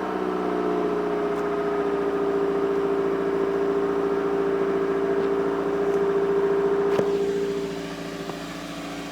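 Toyota MR2's four-cylinder engine held at steady raised revs, then let drop back towards idle near the end, with a single click just before the drop.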